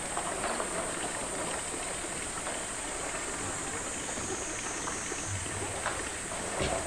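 A polar bear nudging and mouthing a plastic tank: a few soft knocks of the hollow plastic, the clearest near the end, over a steady high hiss.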